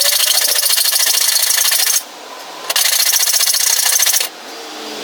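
A tool trimming material to clear the new tyres: a steady cutting noise in two runs, the first about two seconds long, then a short pause and a second run of about a second and a half.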